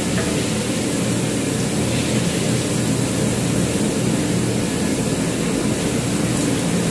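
Minced garlic sizzling in hot oil in a frying pan while a wooden spatula stirs it, as it is taken to a light brown over medium heat. The sizzle is steady and sits over a constant low rumble.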